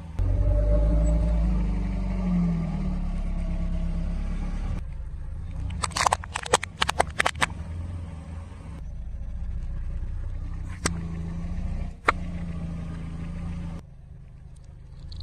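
A car's engine running at low speed as its tyre rolls onto a plastic alarm clock, which breaks with a quick run of sharp cracks and crunches about six to seven seconds in. Later, as the tyre rolls onto a plastic toy revolver, there are two single sharp cracks, near eleven and twelve seconds.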